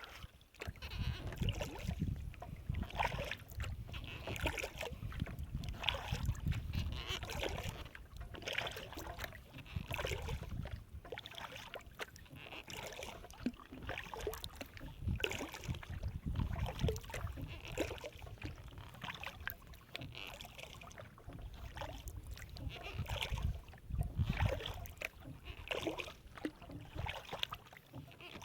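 Kayak paddle strokes in a steady rhythm, the blades dipping and pulling through the water with splashing and dripping, over a low rumble.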